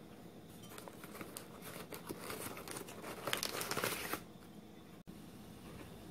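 Newspaper packing being crumpled and pulled out of a cardboard box, a dense crackling and rustling that builds up and is loudest about three to four seconds in, then stops abruptly.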